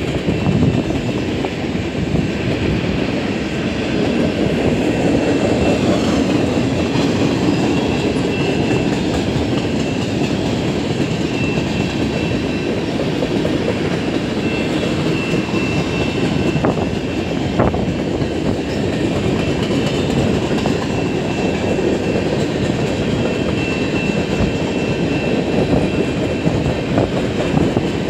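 CN freight train passing at speed: the steady rumble and rattle of freight cars rolling over the rails, with a faint thin high tone running through it and two sharp clacks a little past halfway.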